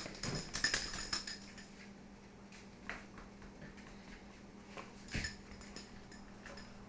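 Dogs moving about on a hard kitchen floor: scattered clicks and taps of claws, with a soft thump about five seconds in, over a faint steady hum.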